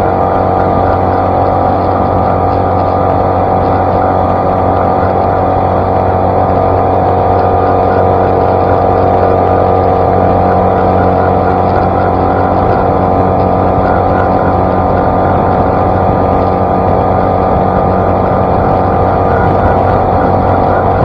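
Outboard motor of an Ankona Shadow Cast 16 skiff running at a steady high-speed pitch on a full-speed run, with water rushing and spraying along the hull.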